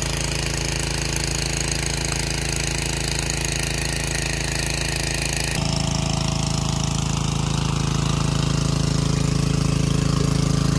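Small engine-driven water pump running steadily while it pumps the pool dry. About halfway through, its hum changes suddenly and becomes louder and deeper.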